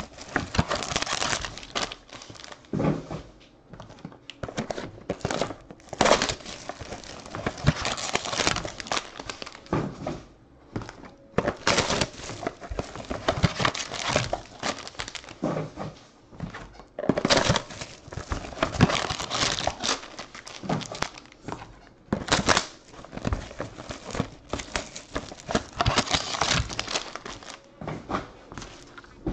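Plastic shrink-wrap and foil card packs crinkling and tearing as trading-card boxes are unwrapped and the foil packs are pulled out and stacked. The rustling comes in irregular bursts with short lulls and an occasional knock.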